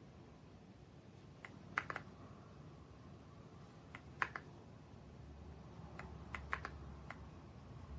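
Keys of a YUNZII X98 mechanical keyboard with pre-lubed switches being pressed: about ten clacky keystrokes in three small clusters, with pauses between them.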